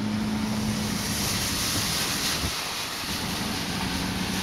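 Steady rushing noise heard from inside a vehicle, with the vehicle's engine humming low underneath. The hum fades out for a moment about a second in and comes back near the end.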